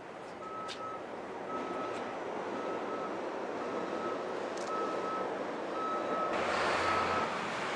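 A vehicle's back-up alarm beeping steadily, about one half-second beep a second, over street noise. Near the end a louder rush of traffic or engine noise joins in.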